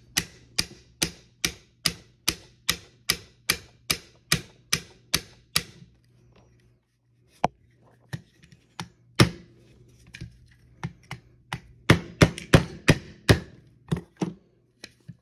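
A small hammer tapping a pin into a Taurus TH9 pistol frame: a quick run of even light strikes, about two and a half a second for some six seconds, then a pause and a burst of harder, irregular strikes.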